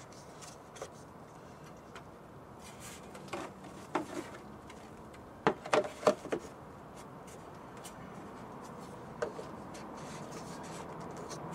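Hands rubbing and handling a plastic engine cover as it is fitted back over the engine. There are scattered light clicks and knocks, with a quick cluster of sharper clicks about five and a half seconds in.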